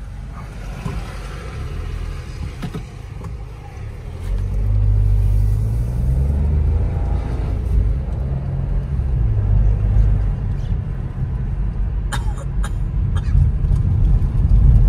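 Car driving, heard from inside the cabin: a low engine and road rumble that grows louder about four seconds in, with a few light clicks near the end.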